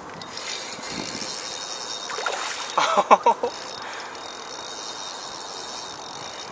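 Fishing reel being cranked to bring in a hooked largemouth bass, a steady fine whirr. A short wavering pitched sound comes about three seconds in.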